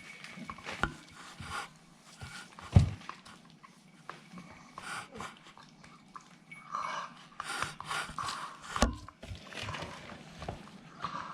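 Staffordshire bull terrier puppies panting and moving about, with many small taps and knocks and two louder thumps, about three and nine seconds in.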